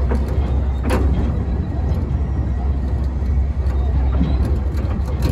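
Narrow-gauge train running, heard from on board: a steady low rumble with a few sharp clicks, the loudest about a second in.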